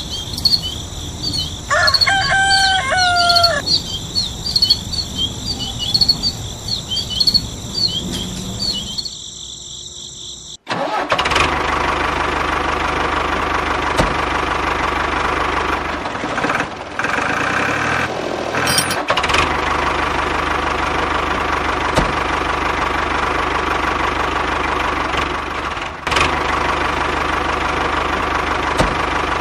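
Birds chirping over a steady high trill, with one falling whistled call early on. About ten seconds in this cuts off abruptly and a tractor engine runs steadily and evenly.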